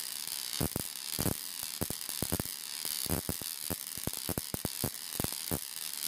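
High-voltage spark from a Ruhmkorff induction coil arcing across a Jacob's ladder: a steady high hiss broken by irregular sharp snaps, several a second.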